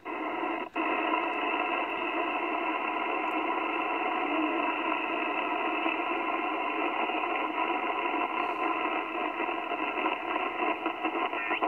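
Ten-Tec Argosy 525 shortwave transceiver's receiver putting out steady band noise and static through its speaker, cut down to a narrow voice-width audio band, while the dial is tuned across the band. The audio drops out briefly twice in the first second as the band is changed.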